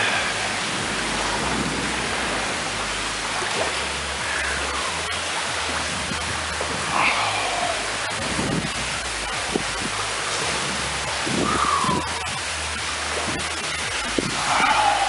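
Legs wading through waist-deep water in a flooded concrete tunnel, the water sloshing and surging with each stride every second or two, over a steady hiss.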